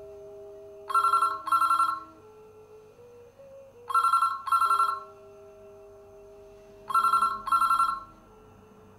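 Desk telephone ringing in a double-ring pattern: three pairs of short rings, about three seconds apart. Low held tones sound quietly underneath.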